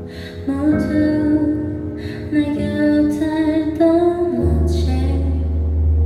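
A woman singing a song into a microphone over an instrumental accompaniment of sustained low notes; the bass note changes about two-thirds of the way through.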